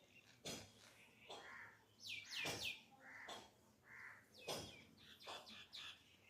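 Faint bird chirping, with a quick run of three or four falling high notes about two seconds in and short calls repeating through the rest, along with a few sharp clicks.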